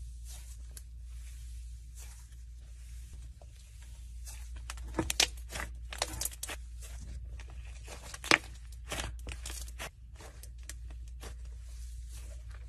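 Fluffy slime being stretched and squeezed by hand: soft, irregular crackling and tearing as the slime pulls apart, with a few louder pops near the middle.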